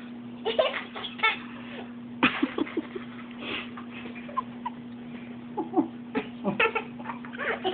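A small child giggling in short bursts, over a steady low hum.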